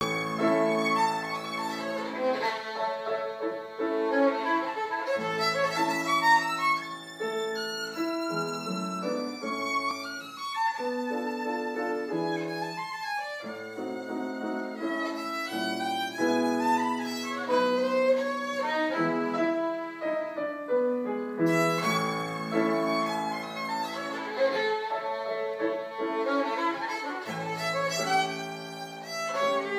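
Violin played with the bow, a melody of held and moving notes, with grand piano accompaniment underneath.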